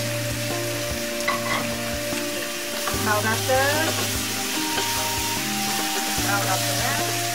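Village chicken pieces sizzling in hot oil and spices in a pot while a wooden spatula stirs and turns them, over steady background music.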